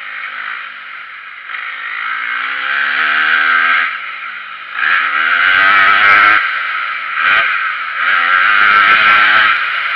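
Motocross bike engine revving hard and climbing in pitch, then dropping off as the throttle is rolled off, three times over. Heavy wind noise rushes across the bike-mounted microphone throughout.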